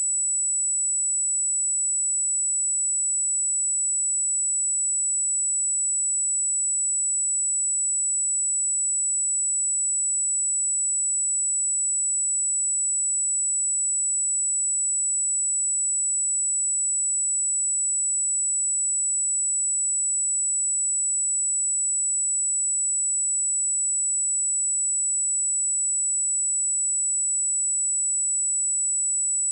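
A pure 7912 Hz sine-wave test tone, a single steady high-pitched tone held at one pitch and level throughout.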